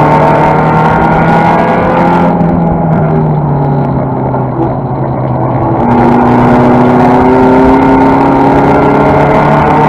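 Toyota Celica race car's 5S-FE four-cylinder engine, heard from inside the stripped cabin, running hard under racing load. It eases off for a few seconds midway, then comes back on the throttle about six seconds in, its pitch climbing slowly.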